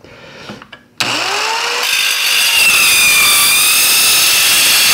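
Dovaman MCS01A mini circular saw starting about a second in, its motor rising in pitch. From about two seconds its 60-tooth blade cuts through aluminium angle with a loud, high, ringing metallic sound.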